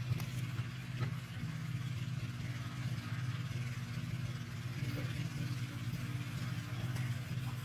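A machine running with a steady low hum, with a few faint light clicks over it.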